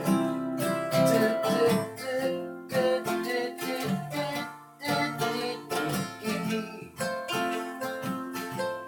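Music: an instrumental passage of a song, played on a strummed plucked-string instrument such as an acoustic guitar, with chords struck in a steady rhythm.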